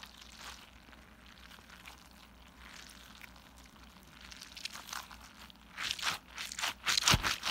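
Orbeez-filled stress ball squeezed in the hand close to the microphone: a quick run of crackling squishes that starts about five seconds in and is loudest near the end.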